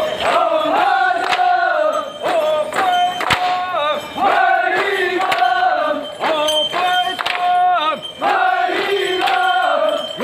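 Group of voices chanting a short repeated phrase in unison for a bamboo dance, over a steady rhythm of bamboo poles knocking together.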